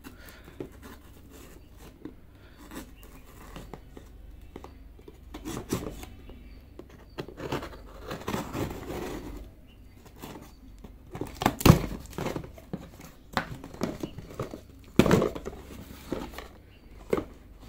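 A small knife slitting the packing tape on a cardboard box, then the cardboard flaps being pulled open and handled, with scattered scrapes and rustles. Two louder knocks, one about two-thirds of the way through and another a few seconds later.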